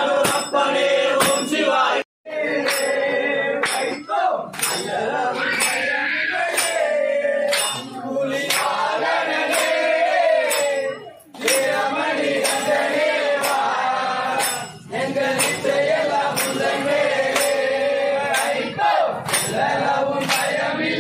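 A group of voices singing a Hindu devotional song (bhajan), with small cymbals clinking on a steady beat. The sound cuts out briefly about two seconds in.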